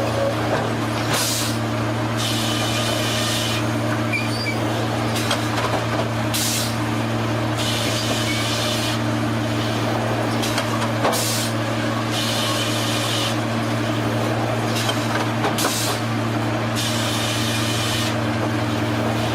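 Sawmill machinery running with a steady low hum, broken by irregular bursts of high-pitched hissing noise every second or two.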